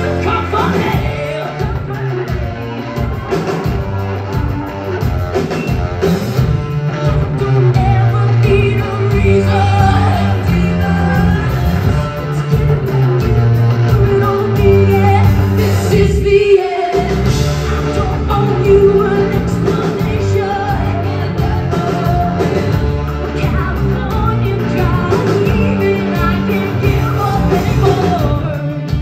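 Live rock band playing, with a woman singing lead over electric guitars, bass and drums. The band drops out for an instant just past halfway, then carries on.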